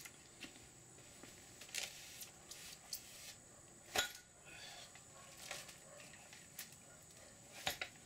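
A folding metal hand truck is set down beside a heavy parcel of steel bars and the parcel is loaded onto it: a few sharp knocks and clinks, the loudest about halfway through and another near the end.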